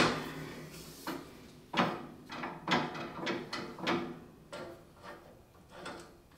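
Metal dust-bucket lift handle of a dust collector clanking against the base frame as it is fitted into its bracket: a sharp knock at the start, then a string of irregular knocks and rattles.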